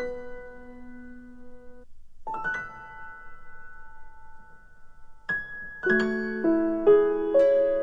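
Background piano music: slow, sparse notes and chords that ring on, growing busier in the last couple of seconds.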